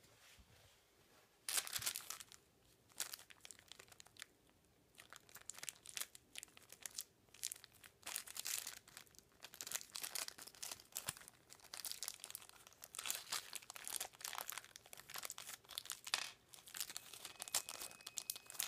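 Small clear plastic zip-lock bag crinkling and rustling in irregular bursts as fingers handle it and pull it open, starting about a second and a half in.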